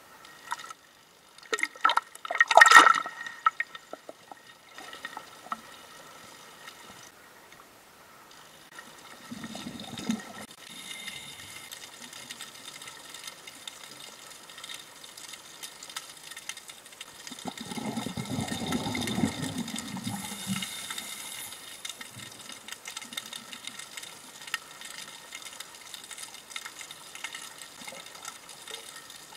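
Water splashing and sloshing against a camera at the surface, then the muffled sound underwater: a faint steady crackle with two low bubbling rushes, one about nine seconds in and a longer one near the middle.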